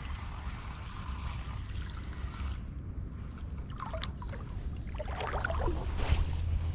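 Shallow creek water trickling and sloshing, with a few small splashes, over a steady low rumble.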